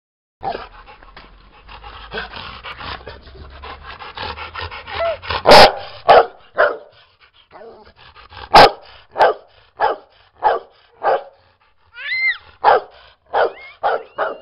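Female rottweiler barking. A quieter, quicker run of sounds in the first few seconds gives way to loud single barks, each about half a second apart, from about five seconds in, with a short rising-and-falling whine about twelve seconds in.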